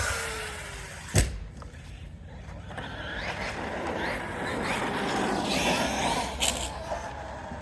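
Electric RC truck's motor whining, rising and falling in pitch as it speeds up and slows over several seconds, with a sharp knock about a second in and a shorter knock near the end.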